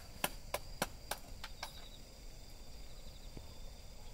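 A quick run of light metallic clicks and taps, about six in the first second and a half, from a steel frying pan being handled on a small camp stove. A steady high insect trill, such as crickets, carries on behind.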